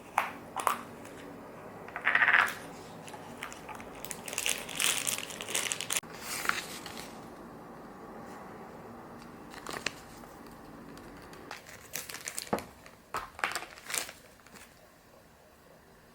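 Crinkling and rustling of wrapping or packaging being handled, in irregular bursts, with a few sharp small clicks and knocks in the second half.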